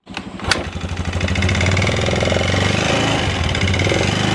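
Single-cylinder engine of a carburetted Yamaha Xeon 125 scooter running with a rapid tek-tek-tek knock, getting louder over the first second as it is throttled, with a sharp click about half a second in. The mechanic takes the knock for the piston rather than the valves, and says the bike is down on power.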